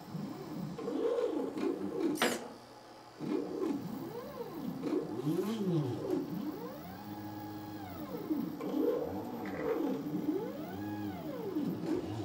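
Stepper motors of a 3D-printed robot arm whining in pitch sweeps that rise and fall as each move speeds up and slows down, often several tones at once. A single sharp click comes about two seconds in.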